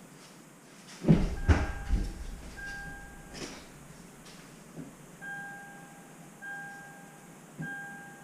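A few heavy thuds about a second in, then a 2018 Toyota 4Runner's electronic cabin chime beeping in a steady repeating rhythm, about once every second and a bit, with a short pause in the middle.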